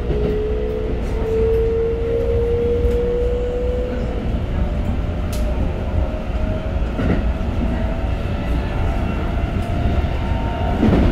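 Keikyu New 1000 series train's Siemens GTO VVVF inverter and traction motors whining under acceleration, heard from inside the car. The pitch climbs in small steps over the first few seconds, then rises smoothly over a steady rumble of wheels on rail, with a few rail clicks.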